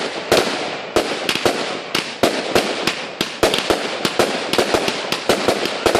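Fireworks firing shot after shot in quick succession, about three bangs a second, each shot rising on a sparkling tail and bursting into stars.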